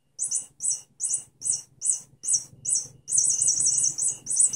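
Electronic cat toy giving short, high-pitched chirping squeaks, about two to three a second, then a quicker run of them near the end.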